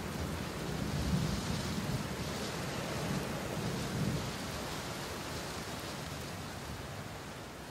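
Steady rain with low rolling thunder, swelling about a second in and again around four seconds, then slowly fading.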